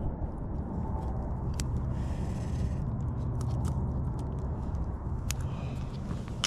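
Fishing line and tackle being handled, giving a few small sharp clicks, over a steady low rumble of wind on the microphone.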